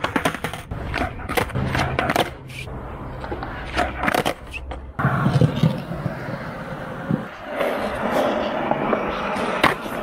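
Skateboard on asphalt: a run of sharp clacks as the board is popped and slaps down during trick attempts, then from about five seconds in the wheels rolling with a steady rumble, with one more sharp clack near the end.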